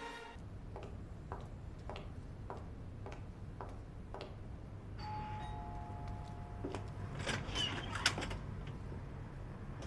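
Soft regular taps about every two-thirds of a second, then a two-tone ding-dong doorbell chime, a higher note falling to a lower one, about five seconds in, followed by a short clatter.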